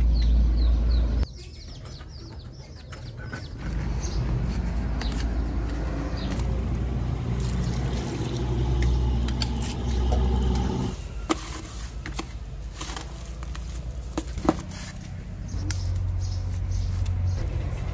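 Wet cement mortar being mixed by hand in a plastic bucket: a shovel and then a trowel scrape through the mix and knock against the bucket now and then, over a steady low rumble. Birds chirp in the first second or so.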